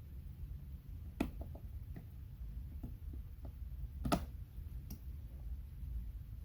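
Handling noise from vinyl wrap film being worked around an instrument case's carrying handle: a few light clicks and taps over a low hum, the sharpest about a second in and about four seconds in.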